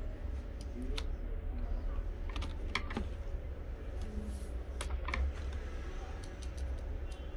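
Scattered light plastic clicks and knocks from a Dell Latitude E7450 laptop being taken apart by hand, as its palm-rest assembly is lifted off the base and the parts are handled. A steady low hum runs underneath.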